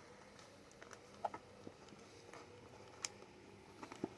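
A handful of faint, sharp little clicks and ticks: a thumbtack prodding the terminals of a table fan's speed switch to release the wires.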